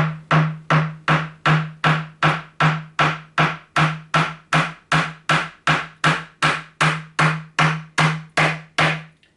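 Hammer driving a flat-headed nail into a wooden end table top: a steady run of about 25 evenly spaced blows, close to three a second, each with a low ring, stopping just before the end.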